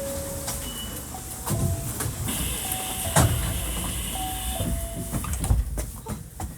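Hankyu 1300 series train car noise: low rumbling with a few heavy clunks, and a short two-note tone, high then lower, sounding three times.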